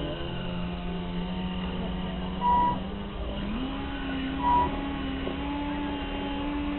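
Electric drive motor of a Graupner Bremen 9 RC model boat running with a steady hum, rising in pitch about halfway through as the throttle is opened. Two short high beeps sound, one about two and a half seconds in and one about four and a half seconds in, and they are the loudest sounds.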